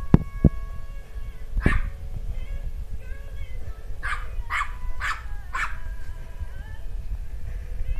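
A dog's fake sneezes, short sharp puffs of breath: one about two seconds in, then four in quick succession between about four and six seconds in. A couple of sharp clicks right at the start.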